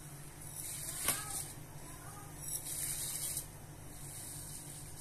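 Coarse barley semolina poured from a bowl into a pot of simmering soup: a soft hissing patter of grains hitting the liquid, coming in bursts, with a light click about a second in, over a low steady hum.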